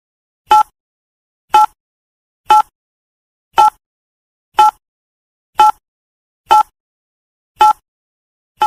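Countdown timer sound effect: a short electronic beep about once a second, nine in all, ticking off the seconds of a countdown.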